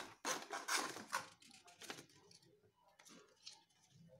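Cardboard packaging and paper leaflets being handled and rustled by hand: a quick flurry of crinkling and scraping through the first two seconds, then a few lighter rustles.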